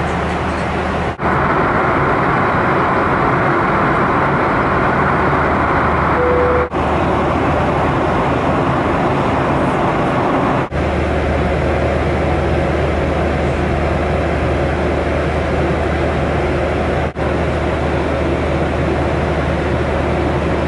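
Steady cabin noise of a Boeing 737-800 at cruise: a broad rush of air with an engine hum. The sound changes abruptly at cuts about 1, 7, 11 and 17 seconds in. A short single beep sounds about six seconds in.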